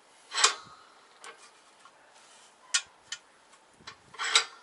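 A handful of sharp clicks and knocks from a control arm and its rubber bushing being handled and shifted at a bench vise. The loudest knock comes about half a second in, and a cluster of them comes near the end.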